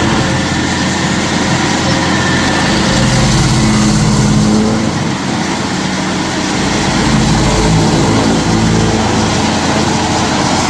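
Stump grinder running, its engine note wavering up and down over a constant noisy grinding.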